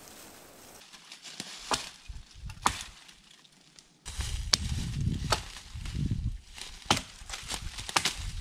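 Dry dead branches cracking and snapping, with crunching and scraping through dry leaf litter, as a long dead tree is wrestled and dragged through brush. It starts about halfway through, with several sharp cracks over a rough, low rustling.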